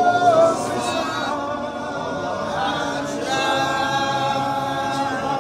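A group of people singing together without instruments, a church song with long held notes.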